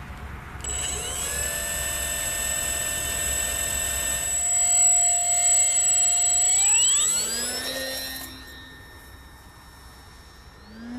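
Electric RC model plane's brushless motor whining with a stack of steady tones, then rising in pitch as the throttle is opened about six and a half seconds in. The sound drops away near eight seconds.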